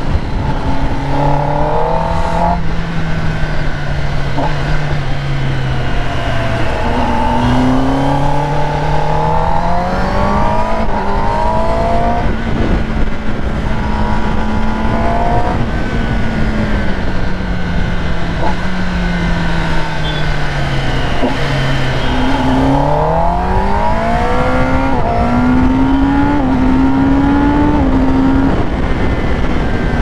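Kawasaki Ninja ZX-10R's inline-four engine running under way, its note rising and falling slowly as the bike speeds up and eases off. A steady rushing noise runs underneath.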